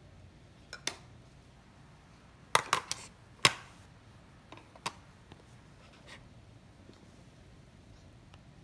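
Small plastic makeup cases and lipstick tubes being handled by a toddler: a scatter of short sharp clicks and clacks, the loudest cluster about two and a half to three and a half seconds in, then a few fainter clicks.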